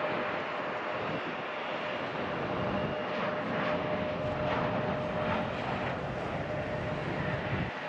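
Boeing 737 jet airliner engines running: a steady rushing jet noise with a constant whine through it.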